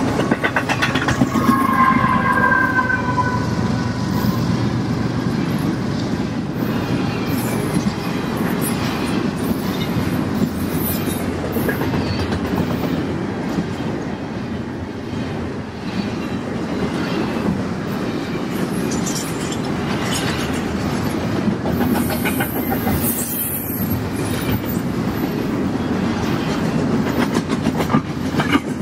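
Double-stack container train's well cars rolling past, a steady rumble of steel wheels on rail with repeated wheel clatter. About two seconds in comes a brief high-pitched squeal that slides slightly downward.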